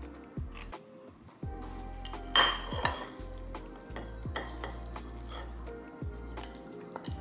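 A knife scraping as it spreads jam across toasted bread, then a spatula scraping and clinking against a frying pan as scrambled food is pushed out onto a plate. Soft lo-fi music plays underneath.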